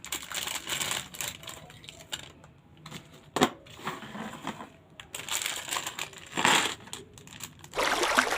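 Toy packaging being handled and opened: irregular rustling and clicking of plastic and cardboard, with one sharp click about three seconds in.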